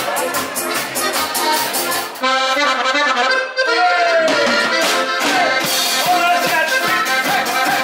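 Band music led by a button accordion, with acoustic guitar, bass and drums keeping a steady beat. A couple of seconds in, the drums drop out for about a second and a half under held accordion chords, then come back in.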